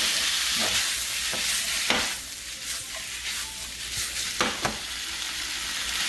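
Sliced beef and onions sizzling in a hot frying pan, being stirred with a wooden spatula that knocks and scrapes against the pan a few times.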